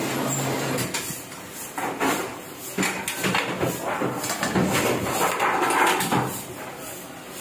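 Heidelberg offset press running with a steady hum and regular ticking that stops about a second in. It is followed by irregular rustling and clattering as a thin aluminium printing plate is flexed and handled on the press.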